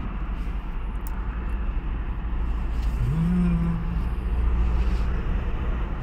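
Car engine and road rumble heard from inside the cabin as the car moves slowly while parking.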